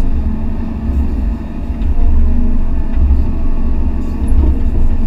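Excavator's diesel engine and hydraulics running under load, heard from inside the cab: a loud, steady low rumble that swells and eases as the bucket digs and lifts soil.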